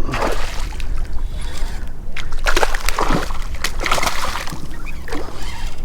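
Water splashing in irregular bursts as a hooked speckled trout thrashes at the surface while it is being reeled in.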